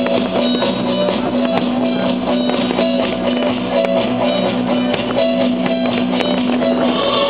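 Music with guitar and drums, with long held notes; no firework bangs stand out over it.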